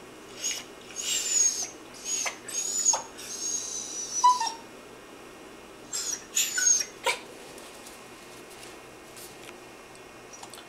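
Yorkshire Terrier mix puppy making high-pitched, squeaky whining noises in a run of short calls, some with a falling pitch. A second, shorter bout comes about six seconds in.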